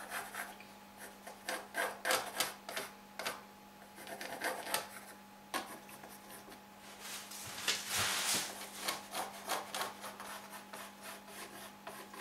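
Pencil scratching over a sawn wooden board in many short repeated strokes as an outline is sketched, with one longer stroke about eight seconds in.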